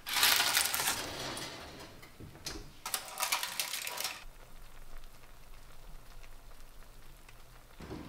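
Metal frying pan pulled out of a hot oven and set down on the gas hob's grate: two bursts of scraping and clatter, one at the start and one about three seconds in.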